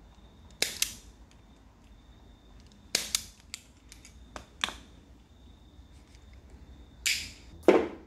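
Self-adjusting wire stripper snapping shut and springing open on cable ends: sharp clicks, a pair about a second in, a cluster around three seconds in and another near four and a half seconds. A rustle and a louder knock from handling the cables near the end.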